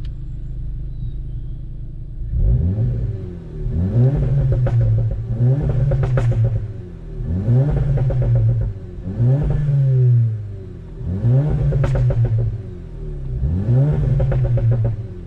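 Volkswagen Mk7 GTI's turbocharged 2.0 L four-cylinder through a Borla cat-back exhaust, idling briefly, then revved in a string of about nine quick blips, one every second and a half. As each rev falls, the APR crackle tune makes sharp pops and bangs in the exhaust.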